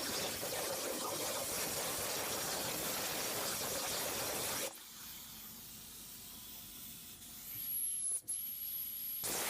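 Hypertherm plasma torch cutting at 300 amps: a steady loud hiss that cuts off sharply about halfway through, leaving a quieter hiss, then starts again abruptly near the end.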